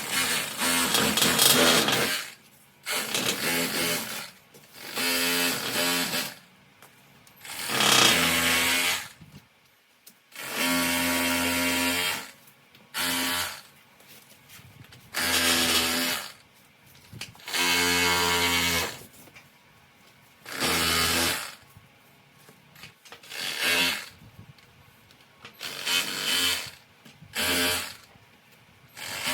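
A handheld power tool trimming cured expanding foam from a golf cart seat patch, triggered in about a dozen short bursts of a second or two each, with brief pauses between them.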